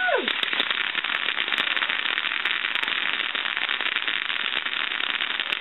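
Ground fountain firework spraying sparks with a steady, dense crackle.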